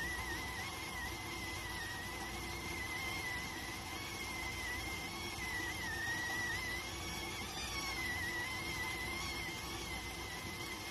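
Electric rice cooker whistling while it cooks: a steady high whistle that wavers slightly in pitch, over a soft hiss.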